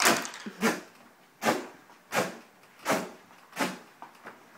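Couch upholstery fabric being ripped off the frame by hand in repeated pulls: about six short tearing strokes, each roughly two-thirds of a second after the last.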